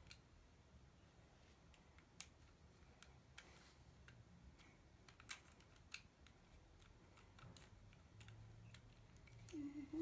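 Near silence with a few faint, scattered plastic clicks from a PEZ dispenser being handled and loaded with candy tablets.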